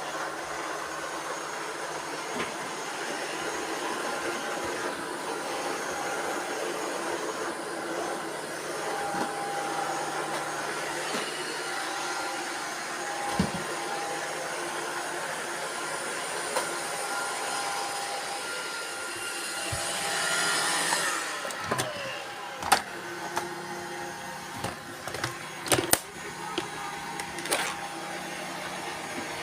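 Robot vacuum cleaners running, a steady whirring hum. About twenty seconds in, part of the whir drops away, and sharp clicks and knocks follow.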